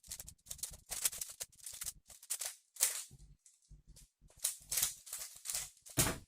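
A speedcube (Rubik's cube) being turned fast in a timed solve: rapid, irregular bursts of clicking and rattling as the layers snap round, with short pauses between bursts.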